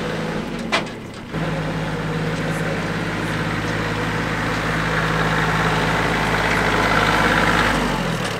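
Small compact tractor's engine running steadily as the tractor drives slowly toward and close past the listener, growing louder, its pitch dropping slightly near the end. A short click about a second in.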